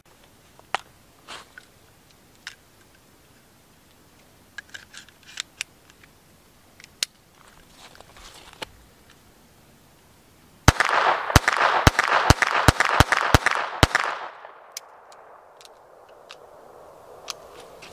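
Beretta 21A Bobcat .22 LR semi-automatic pistol fired in a rapid string of about eight shots over some three seconds, starting about ten seconds in. Before the shots there are a few faint clicks of the pistol being handled.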